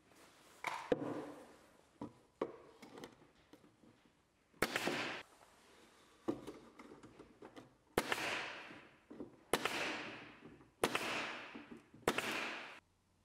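Bostitch nail gun fired five times, each shot a sharp crack followed by a short hiss. The first comes a little over four seconds in, and the rest follow about a second and a half apart. Lighter knocks come before the first shot.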